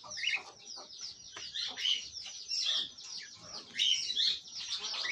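Aviary birds chirping and chattering, many short calls overlapping without a break.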